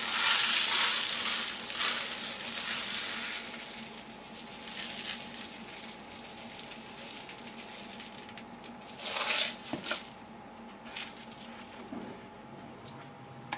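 Dry rice poured from a plastic cup into a plastic food container: a steady hissing patter of grains, loudest in the first few seconds and thinning out after. A brief louder rustle comes a little past the middle.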